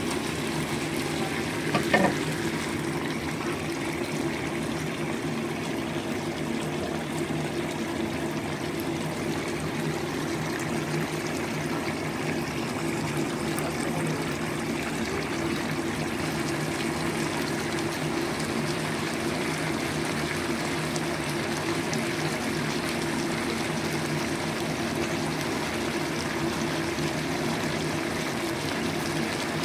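Chicken wings simmering in sauce in a nonstick pan: a steady bubbling hiss over a constant low hum. A single knock about two seconds in.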